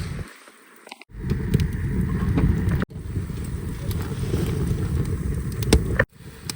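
Wind buffeting the microphone in a snowstorm, a low rumbling noise that cuts off abruptly a few times, with a few faint clicks.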